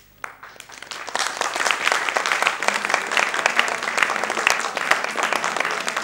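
Theatre audience applauding: the clapping starts just after the beginning, swells to full within about a second, and then holds steady and dense.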